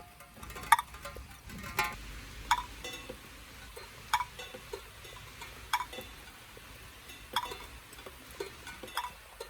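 Water drops falling one by one into containers, each landing as a short ringing plink, at varying pitches and irregular intervals of about a second or so.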